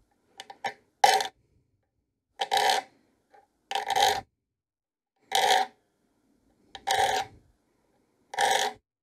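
Triangular saw file scraping single short strokes across the top edge of a steel dovetail saw plate, six strokes about one every one and a half seconds. Each stroke files a small nick at a mark spaced every 2 mm, laying out the new teeth on a plate filed down to smooth metal.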